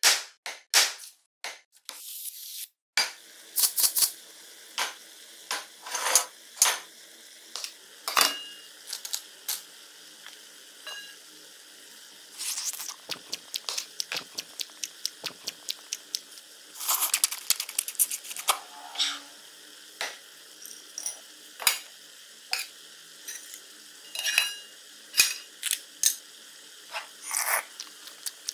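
Cleaver chopping sharply on a wooden cutting board in the first couple of seconds, then a long run of quick clicks, rattles and clinks of a pot and dishes over a steady low hum.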